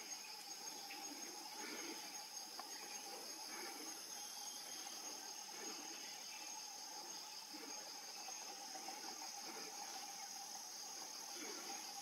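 Faint, steady high-pitched chorus of forest insects, with a second steady lower drone beneath it and no pauses.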